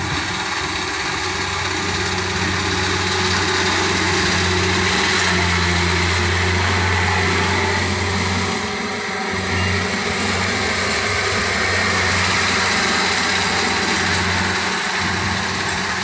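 Japanese combine harvester running steadily while cutting rice: an even engine drone under a broad mechanical rush. The drone dips briefly about nine seconds in and again near the end.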